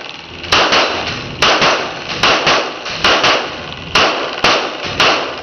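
Handgun shots fired rapidly by two shooters in an indoor range, about a dozen irregular shots at two or three a second, each with a short echo off the room.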